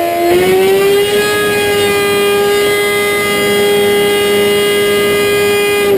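The inline-four engine of a 2011 Kawasaki ZX-10R sport bike runs hard on a chassis dyno. Its pitch climbs a little in the first second, then holds a steady high note.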